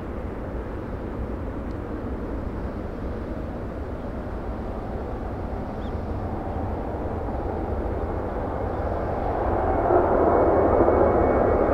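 Airbus A320 jet engines at takeoff power: a distant steady rumble that grows louder from about eight seconds in. Near the end a thin high fan whine comes in as the aircraft draws closer.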